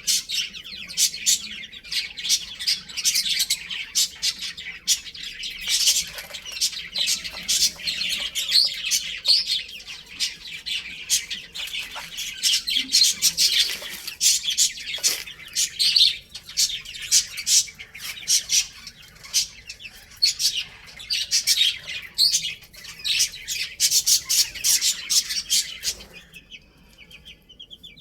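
A crowd of small birds chirping and squawking in a dense, overlapping chatter. Near the end it drops to fainter, sparser chirps.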